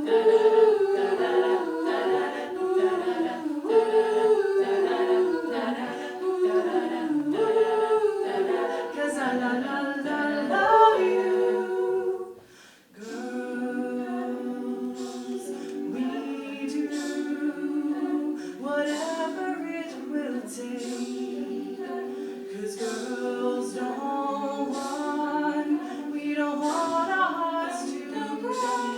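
Student a cappella group singing in close harmony, with no instruments. About twelve seconds in the voices cut out briefly, then come back on held chords with crisp percussive mouth sounds in a steady beat.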